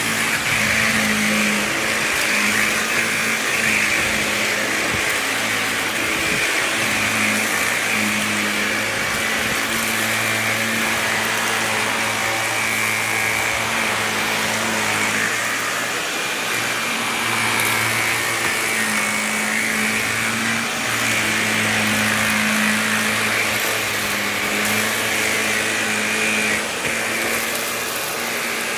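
Upright vacuum cleaner running steadily on a hardwood floor. Its low motor hum swells and fades as it is pushed back and forth.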